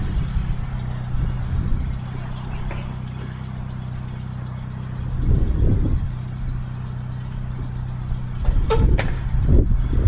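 A Saab 9-3 hatchback's engine idling steadily, with two sharp knocks near the end as a car door is shut.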